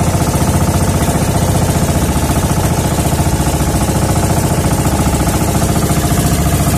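Outrigger fishing boat's engine running steadily at trolling speed, with a fast, even beat.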